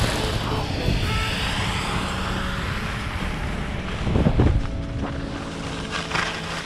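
Wind rushing over the microphone of a camera carried on a fast downhill run on groomed snow, with the rider's edges scraping the snow. There is a louder low rush about four seconds in.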